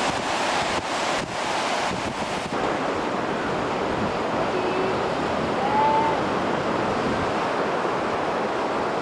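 Strong wind gusting across the microphone over choppy Lake Michigan waves, a continuous rushing noise that is strongest in the first two and a half seconds.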